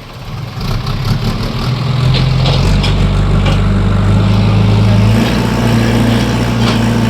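JCB construction machine's diesel engine running, swelling in level over the first couple of seconds and then holding a steady note, with a few light clanks.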